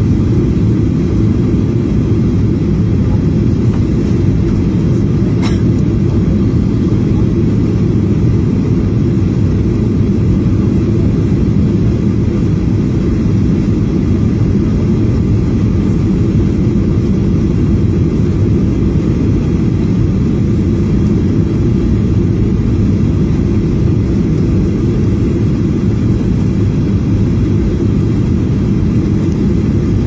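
Steady low rumble of an airliner's engines and rushing air, heard inside the passenger cabin during the descent to land, with one brief faint click about five seconds in.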